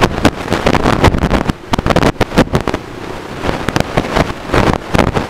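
Heavy wind buffeting on the microphone while a 50cc step-through motorbike rides along a gravel dirt road, with rough knocks from the bumps and the small engine running underneath.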